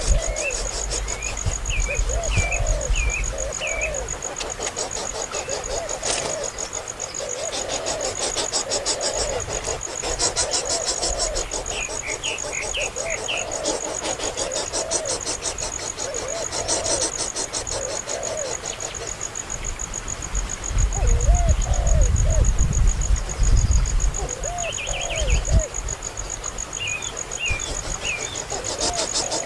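A baby bird cheeping in short, repeated arching chirps, over a steady high insect trill. Low rumbling handling noise comes about two-thirds of the way through.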